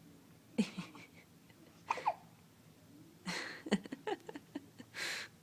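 Hiccups: four or five short, sudden hics at uneven spacing, a second or more apart, with a breathy puff near the end.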